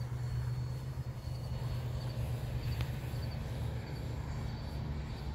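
E-flite Air Tractor electric RC model airplane flying overhead: its brushless motor and propeller make a steady low drone.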